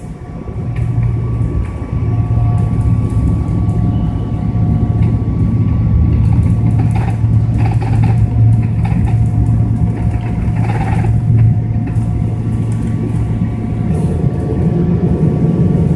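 Boeing 777-300ER's GE90 engines heard from inside the cabin at the start of the take-off roll: the noise swells over the first couple of seconds into a loud, steady low rumble with a steady fan whine. About two seconds before the end the rumble grows fuller and rougher as the aircraft rolls down the runway and the cabin shakes.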